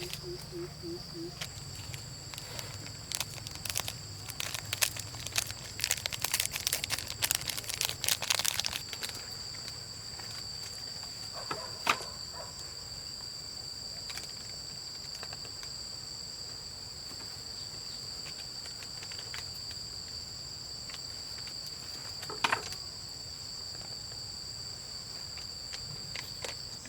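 Insects calling in a steady high-pitched drone. A burst of crackling and rustling comes from about three to nine seconds in, and single sharp clicks come near the middle and again later.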